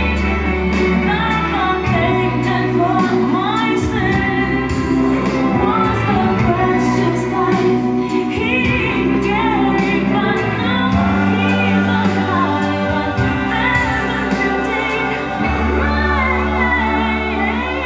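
Live gospel song: a singer's drawn-out vocal runs over a band with held bass notes and drums.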